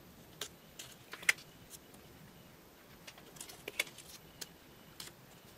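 Light handling sounds as a small paper card is set down and moved into place on a sheet of paper: a scattering of short, sharp clicks and taps, bunched about a second in and again around three to four seconds in, with the clinks of a metal chain bracelet on the moving wrist.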